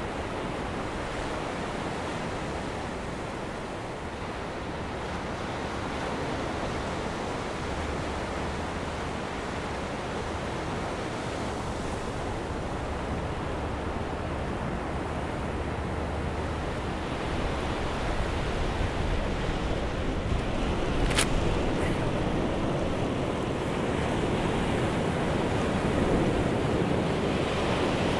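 Pacific surf breaking on a rocky shore, a steady rush of water that grows louder in the second half. One sharp click sounds about three quarters of the way through.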